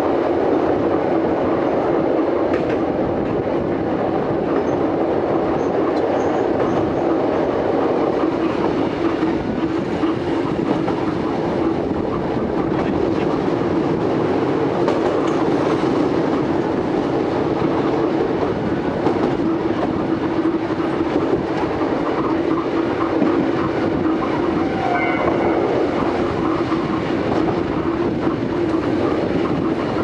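Vintage Kotoden electric railcar running at speed, heard from inside the cab: a steady rumble of wheels on rails with clickety-clack over the track. A brief high-pitched whine comes in about three-quarters of the way through.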